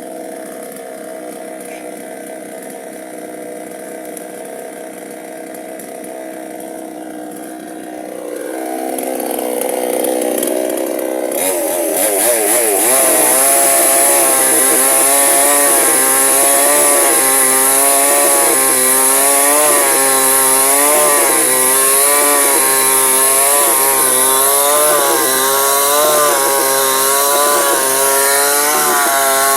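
Two-stroke chainsaw idling, then throttled up about eight seconds in and cutting into wood. Its engine pitch dips and recovers roughly once a second as the chain bites.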